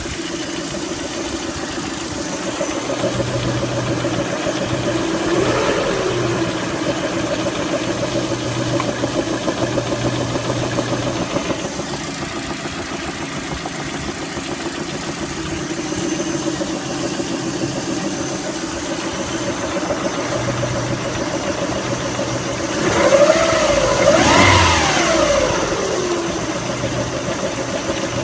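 Lada Priora engine idling with a knock that the owner places in the timing-belt area and that has not gone away after a new water pump, timing belt and rollers. The engine is revved up briefly about five seconds in and twice more near the end.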